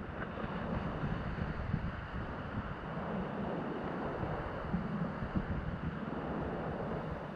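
Wind buffeting the microphone in an irregular low rumble over a steady rushing of sea.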